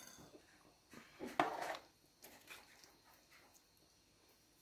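Quiet, faint sounds of a ladle stirring a pot of soup, with one brief louder sound about a second and a half in.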